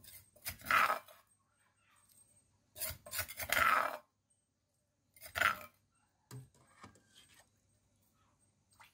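A spoon scraping pounded shallot, lemongrass and chilli paste out of a mortar, three scrapes a second or two apart.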